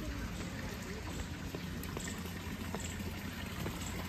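Steady trickle of running water from a small garden fountain.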